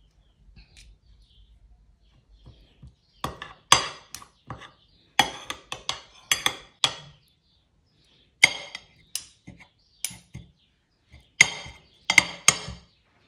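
Metal cutlery clinking and scraping against a plate while eating, an irregular run of sharp clinks that begins about three seconds in.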